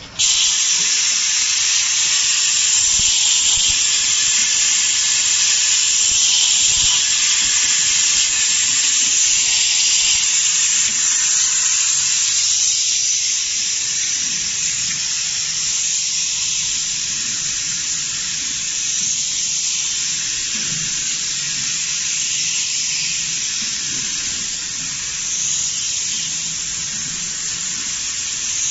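Beer bottle filling and capping machine running: a steady, loud hiss with a faint low hum of motors beneath.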